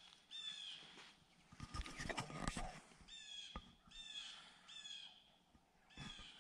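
A bird calling in a series of about five short, harsh caws. About two seconds in there is a louder burst of rustling and crunching in dry leaves.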